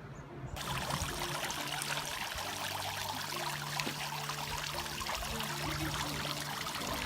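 Rushing water in a steady, even rush that starts abruptly about half a second in and cuts off suddenly at the end.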